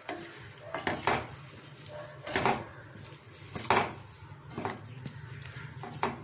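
A flat spatula stirring and scraping mushrooms in a wet masala around a stainless steel kadai, a handful of irregular scrapes and knocks against the pan, over a steady low hum.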